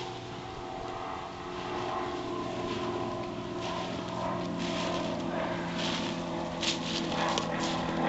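Footsteps crunching and rustling through dry grass, brush and thin snow, growing louder as the walker comes close, with a few sharp crunches near the end. Under it runs a steady low drone of a distant engine.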